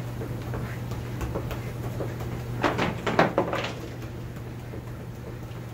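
Small soccer ball tapped quickly back and forth between the insides of the feet on carpet: a steady run of soft taps, with a cluster of louder knocks about three seconds in.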